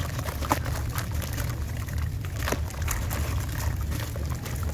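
A wet sand-cement chunk crumbling by hand into a tub of water: grit and crumbs drop and splash with water sloshing, and a couple of sharper splashes stand out about half a second and two and a half seconds in. A steady low rumble runs underneath.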